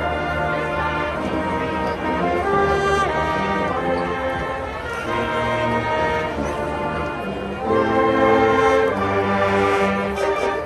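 Orchestral music with held brass chords that change every second or so.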